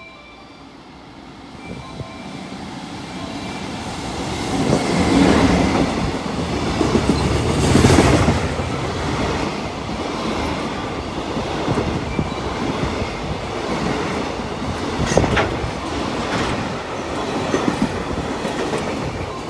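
An EF64 electric locomotive hauling a container freight train passes through a station without stopping. The sound grows louder as the locomotive comes up and goes by about five to eight seconds in, then the container wagons roll past with a steady rumble and occasional wheel clicks.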